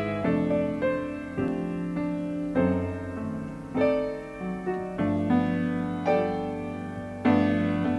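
Piano playing the song's instrumental introduction without vocals: slow chords over low bass notes, a new strike about every second, each left to ring and fade.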